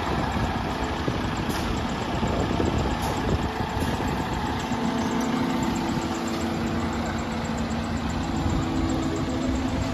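Fire engine's diesel engine idling steadily. A steady hum grows stronger over the second half.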